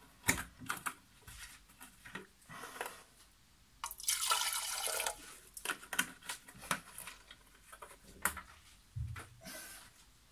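Water poured into the clear plastic water tank of a Nespresso CitiZ coffee machine, a rush lasting about a second, four seconds in, amid scattered clicks and knocks of handling.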